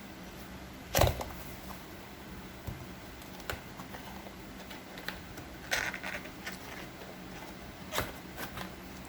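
A cardboard keyboard box being opened and its packaging handled. A sharp knock comes about a second in, a brief scraping rustle follows in the middle, and another knock comes near the end, with small clicks and taps in between.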